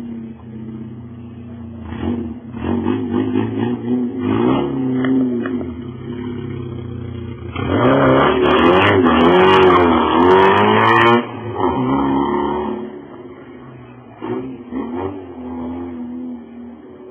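Fiat Uno Fire's four-cylinder engine idling and revved several times through a blown exhaust, which makes it loud. The longest, loudest rev comes about eight to eleven seconds in, with crackles during it, and there are short blips near the end.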